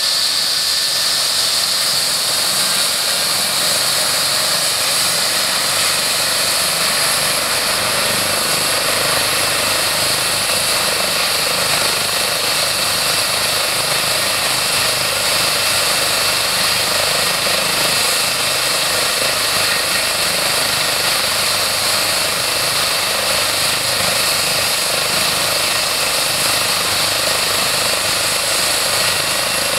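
Eurocopter EC135 helicopter running on the ground with its twin turbine engines going and main rotor turning: a steady, loud rotor and engine noise with a high, even turbine whine.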